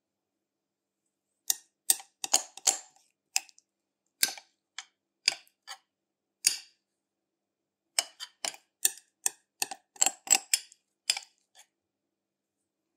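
Metal spoon clinking and tapping against a mixing bowl as thick chocolate batter is scooped out and knocked off: a run of sharp, irregular clicks with a short pause in the middle.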